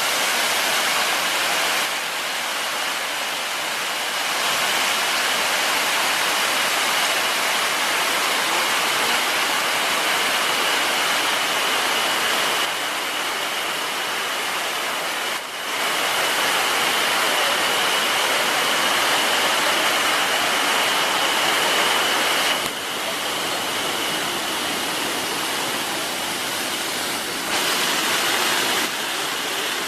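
Shiraito Falls, a wide, low curtain of many thin streams spilling over a rock face into a pool: a steady, dense rush of falling water. Its loudness steps up and down several times.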